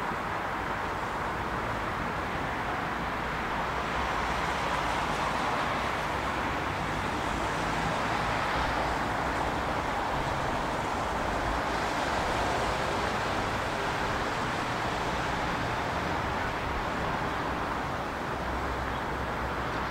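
Steady, even rumble of distant vehicles, swelling slightly in the middle, with no distinct events.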